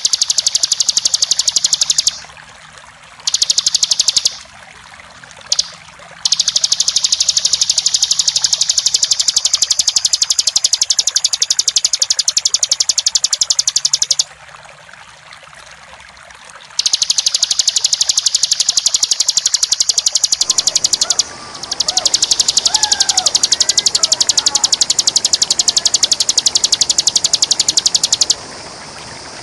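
Bar-winged prinia (ciblek) singing its rapid rattling 'ngebren' song: a string of very fast, high repeated notes in bursts of one to eight seconds with short breaks, over the sound of running water. From about two-thirds of the way in, fainter, lower chirps of another bird join.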